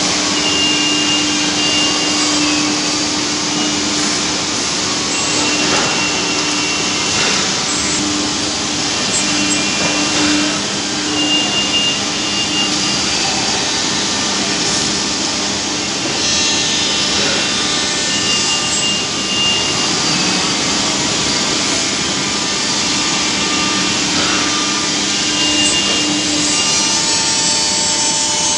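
CNC router spindle cutting into board, with a steady hiss of cutting and dust extraction. A steady hum from the machine fades in and out in stretches, with a higher whine coming and going.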